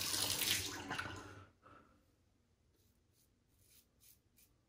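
Tap water running into a bathroom sink, stopping about a second and a half in. Then a quick run of short, scratchy strokes from a Karve Christopher Bradley aluminium safety razor cutting stubble on the cheek.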